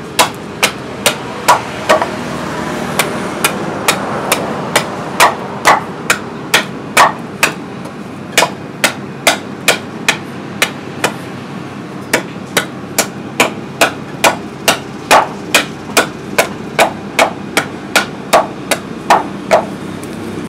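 Hand-forged double-edged billhook chopping into the end of a wooden pole, sharpening it to a point: sharp, regular strikes about two a second, testing the new blade's edge.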